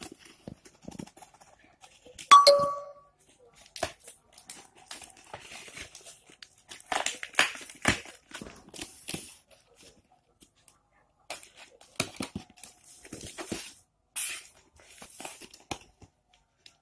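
Packing tape being peeled and torn off a cardboard shipping box as it is opened: irregular ripping, crinkling and scraping with short pauses. A brief squeak about two seconds in is the loudest moment.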